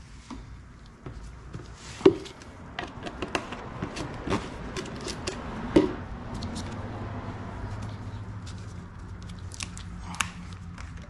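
Plastic motor-oil bottles and caps being handled while refilling a motorcycle engine with oil: a run of sharp clicks and knocks, two of them louder about 2 and 6 seconds in, with a low steady hum underneath in the second half.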